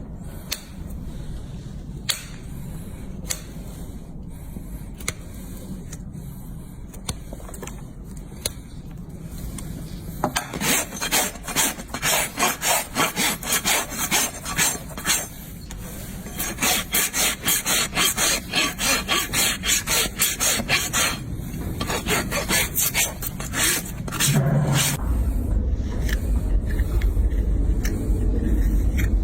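Farrier's rasp filing a horse's hoof in quick, even strokes, about three a second, in two long runs after a stretch of scattered light clicks. A low steady hum underlies it and grows louder near the end.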